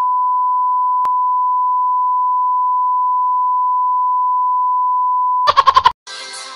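A steady, pure test-pattern beep, the reference tone that goes with TV colour bars, held at one pitch for about five and a half seconds. It breaks into a quick stutter of short pulses just before music starts near the end.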